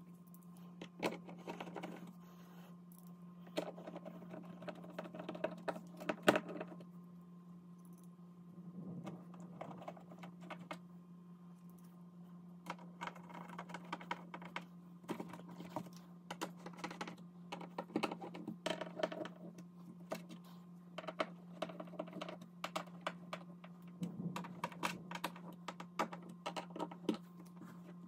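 Hand screwdriver turning small screws into a stainless steel switch wall plate: scattered light clicks and short scratchy clusters as the tip works in the screw heads and the plate shifts, with a steady low hum underneath.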